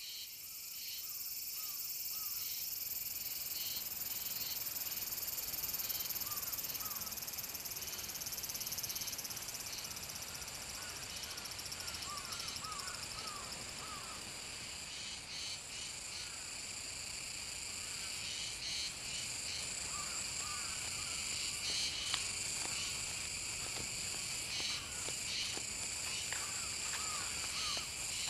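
Steady, high-pitched insect chorus of several layered tones, of crickets and cicadas, with faint short chirps now and then.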